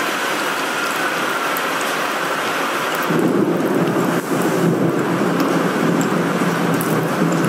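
Thunderstorm audio: steady heavy rain and wind hiss. About three seconds in, a strong low rumble sets in and carries on.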